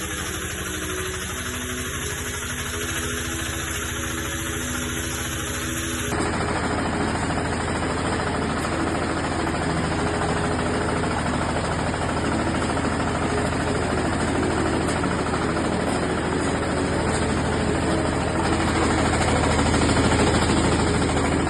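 Engine of a Matsumoto MTM 1100 CH corn harvester (15–18 hp) running steadily. About six seconds in the sound changes abruptly and is louder after that.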